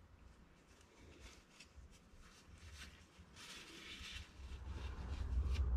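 Faint rustling and scraping of hands handling things off-camera, with a low rumble that grows louder toward the end.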